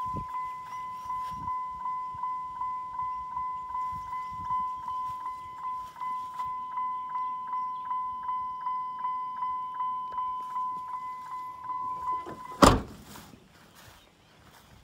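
A 2003 Dodge Ram 1500's cab warning chime sounding with the driver's door open, a steady pulsing tone repeating about three times a second. About twelve and a half seconds in it stops at once with a single loud slam of the truck's door shutting.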